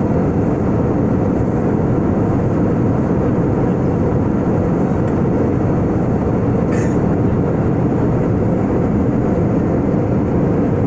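Steady cabin roar of an Airbus A320-family jet airliner in cruise, engine and airflow noise heard from inside the cabin, heaviest in the low range. A brief faint click comes about seven seconds in.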